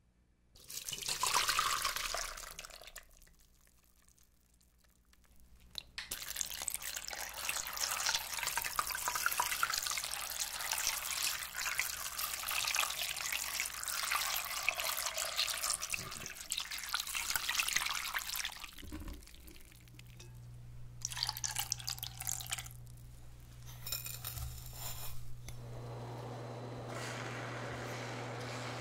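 A stream of clean water poured over cooked tapioca pearls in a stainless steel mesh sieve, rinsing them, runs steadily for about twelve seconds. Near the end, the pearls bubble steadily as they boil in brown-sugar syrup.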